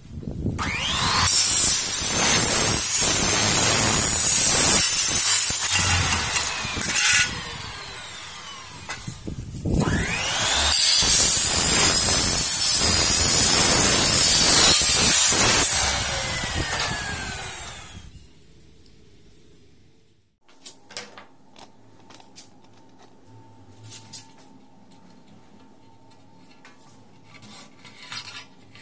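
Electric compound miter saw cutting aluminium window profile twice. Each time the motor spins up with a rising whine, the blade cuts through the extrusion with a loud high-pitched whine for about six seconds, and the motor runs down. After that there are only faint clicks over a low steady hum.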